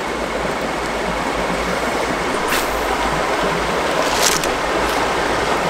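Small mountain creek's water running steadily, with two brief high swishes about two and four seconds in.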